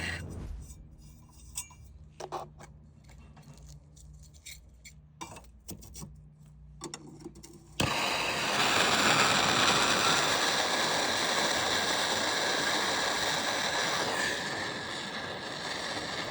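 Scattered light clicks and taps, then a little before halfway a MAP-Pro soldering torch lights suddenly and its flame hisses steadily, a little quieter near the end.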